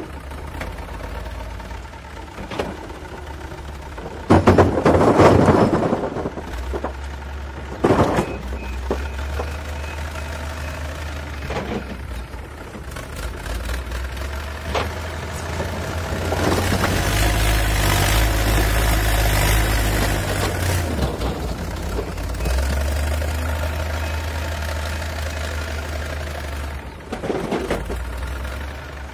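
Backhoe loader's diesel engine running steadily, with a loud clatter of concrete blocks tipping into a tractor trailer about four seconds in and a single knock near eight seconds. The engine runs louder for several seconds in the middle while the bucket is worked.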